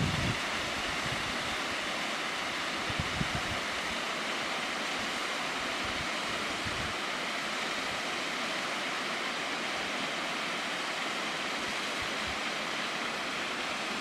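Mountain waterfall pouring over rock: a steady, even rush of falling water, with a few brief low buffets of wind on the microphone.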